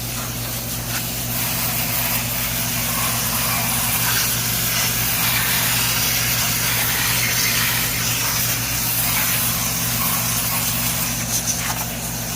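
Goodman air conditioner unit running: a steady electrical hum under a constant hiss.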